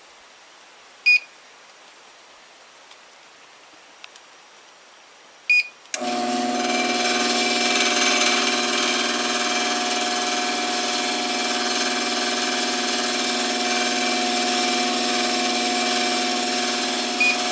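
Two short high beeps from a garage door timer, about a second in and about five and a half seconds in, answering the test switch during learning. Then a garage door opener's motor starts and runs steadily for about eleven seconds, driving the door, with one more short beep just before it stops.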